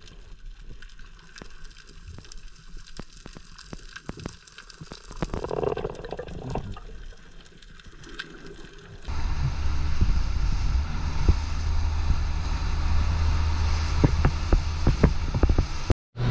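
Muffled underwater sound with scattered clicks, then, about nine seconds in, a motorboat running at speed: a steady low engine hum with wind and spray rushing over the microphone.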